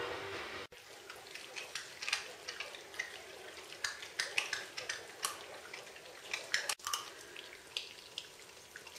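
Czechoslovakian wolfdog puppies chewing raw whole quail: irregular wet clicks, smacks and small crunches of bone and flesh. A short steady hum is cut off under a second in.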